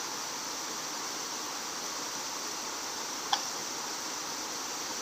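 Steady outdoor background hiss, with a single light click about three seconds in.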